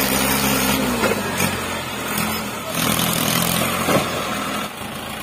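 Mahindra Arjun 605 tractor's four-cylinder diesel engine working under the load of a full sugarcane trolley, its pitch rising and falling, with a couple of knocks. It eases off near the end.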